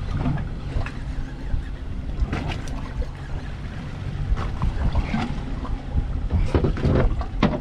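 Wind buffeting the microphone and water washing against a drifting boat's hull, with scattered clicks and knocks from a rod and reel as a hooked fish is reeled in.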